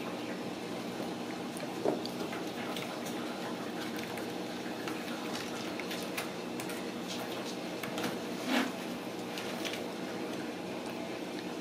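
Kittens playing on a tile floor: scattered light scuffs, taps and rustles, with a louder brief knock about two seconds in and another about two-thirds of the way through, over a steady low hum.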